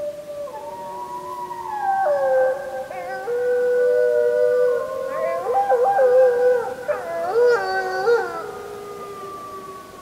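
Several wolves howling together in a chorus: long, overlapping howls that step and slide in pitch. The chorus swells about two seconds in and fades out near the end.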